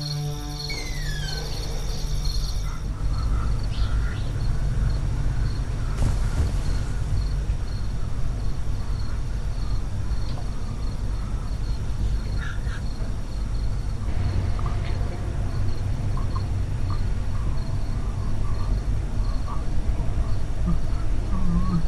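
Crickets chirping in a steady, evenly repeating rhythm over a continuous low rumble, with a few faint scattered sounds.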